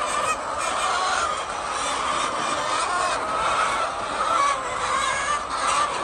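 A flock of hens clucking and calling at once, a steady overlapping chatter of many birds.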